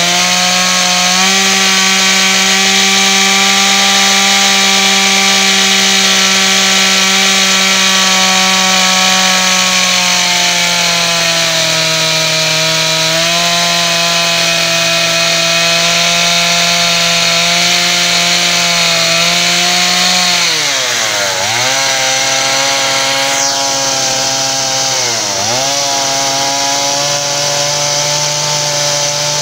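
Two-stroke chainsaw running at high revs, its chain skimming the wood of a mortar spinning on a lathe. It revs up at the start, holds steady, then the revs dip sharply and recover twice near the end.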